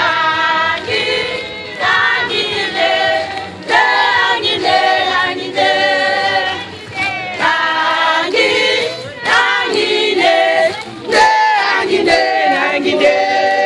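A group of women singing a song together as they march, with no instruments; a few sharp clicks cut through the singing.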